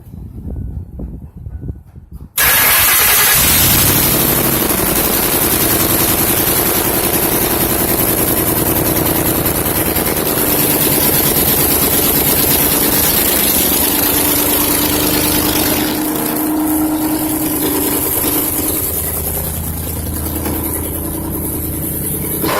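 Car engine starting with its exhaust headers removed: it catches abruptly about two seconds in and runs very loud and raw, the exhaust open at the ports.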